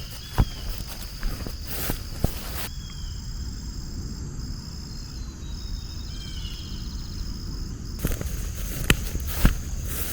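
Footsteps on outdoor ground, sharp scattered steps in the first few seconds and again near the end, over a steady high insect buzz, with a few short chirping bird calls.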